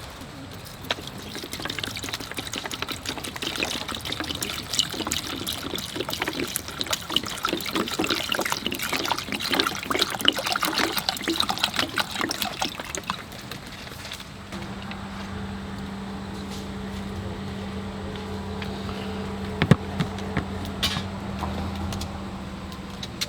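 Liquid trickling and pouring, with dense irregular splashes for about thirteen seconds, then giving way to a steady low hum with a few sharp clicks.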